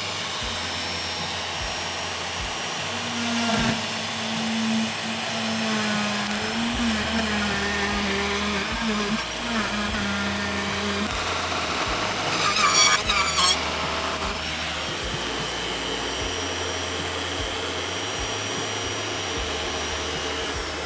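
RotoZip spiral saw running steadily with a high whine as its bit cuts a round hole through drywall, with a louder spell about 13 seconds in.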